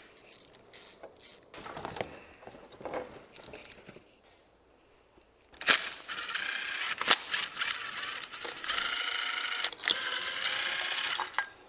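Faint clicks of hand tools at the oil drain plug, then a DeWalt 20V cordless drill whirring in short bursts from about halfway, followed by a steadier run of a couple of seconds as it backs out the bolts of the engine's pickup-coil cover.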